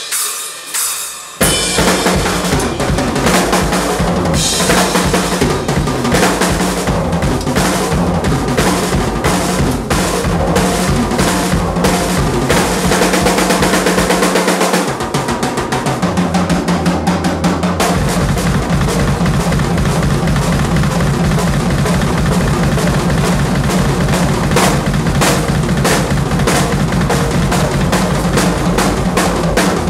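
Drum kit played as a live solo: a cymbal rings out at first, then from about a second and a half in come fast snare and tom fills over the bass drum. About halfway through, a fast, continuous bass-drum pattern sets in under the fills.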